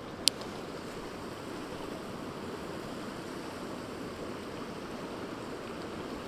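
Steady rush of a flowing river, with one sharp click just after the start.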